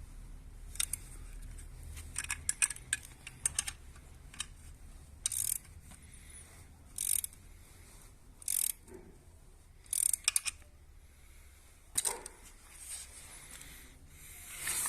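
Metal parts and tools being handled while the compressor is put together by hand: scattered sharp clicks, clinks and short rattles every second or two.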